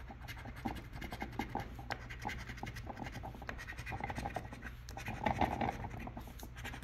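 Scratch-off lottery ticket being scratched: rapid, uneven scraping strokes, louder for a moment about five seconds in.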